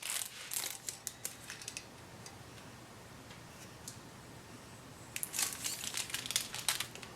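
Plastic packaging crinkling and small clicks and knocks as a bicycle crank arm is handled and freed from its wrapping, in two bursts with a quieter pause between.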